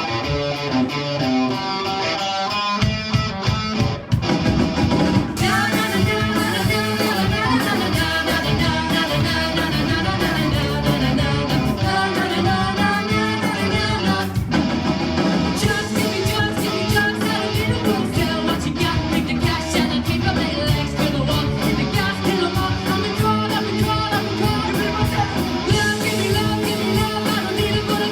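Rock band playing a song live: guitar alone at first, then drums and bass come in about three seconds in and the full band carries on, with singing.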